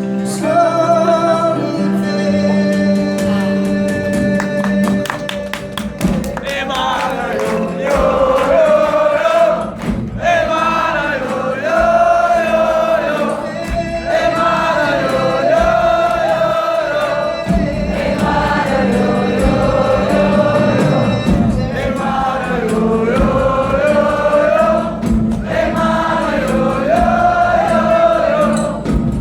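Live music: sustained instrumental notes for the first few seconds, then a wordless sung melody carried over the accompaniment to the end.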